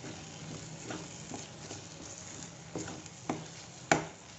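Metal spoon stirring masala paste frying in oil in a metal kadai: a low sizzle with several knocks and scrapes of the spoon against the pan, the loudest near the end. The masala is being fried until it begins to release its oil.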